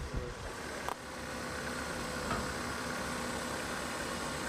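Steady mechanical running hum with constant whining tones, from the powered setup that drives a tyre over upright nails in a puncture-resistance demonstration; a single click about a second in.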